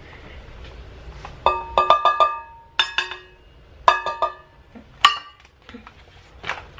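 A kitchen utensil knocked repeatedly against the rim of a mixing bowl with ringing clinks. It comes in four quick bursts of a few taps each, every tap ringing at the same pitches.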